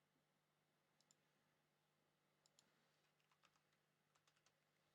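Near silence: faint room hum with a dozen or so faint, short clicks scattered through, bunched between about one and four and a half seconds in.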